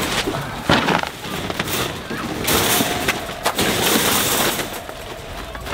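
Metal wire dog crate rattling and clanking as it is pushed and shifted into place on the van floor, with a run of sharp knocks and a louder clank about three-quarters of a second in.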